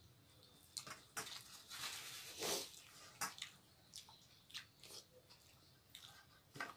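Eating by hand: fingers mixing rice into thin chicken curry on steel plates, with wet squishing, chewing and small mouth clicks and smacks. A longer wet rustle swells to its loudest about two and a half seconds in.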